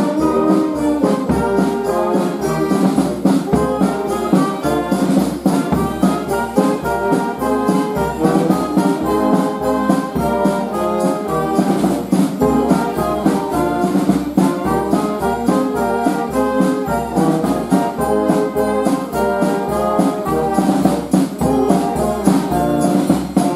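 Brass band with saxophones, trumpets and drums playing a Greek Christmas carol (kalanta) over a steady drum beat.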